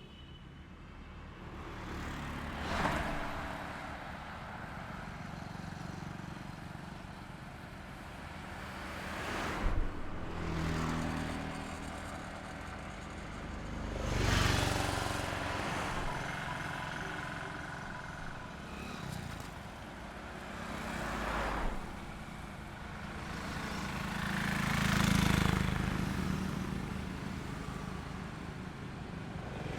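Highway traffic heard from the roadside: vehicles pass one after another, each swelling in and fading away, about five passes in all. The loudest is a heavy, low-sounding pass near the end.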